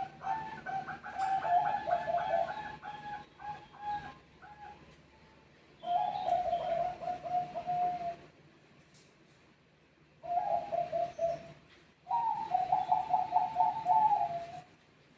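Zebra doves (Bangkok perkutut) cooing, answering one another in about four rapid, rolling coo phrases with short pauses between them. The first phrase is the longest.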